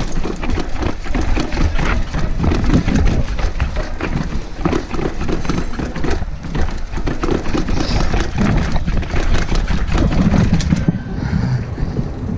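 Mountain bike clattering and rattling as it rolls fast over brick paving, with a low rumble of wind and rolling noise. The rattling eases off near the end.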